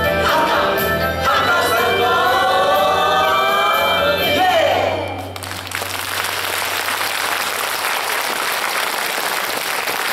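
A group of singers with backing music finishing a Hakka song medley, ending on a held note that slides down about five seconds in. The music stops and the audience applauds.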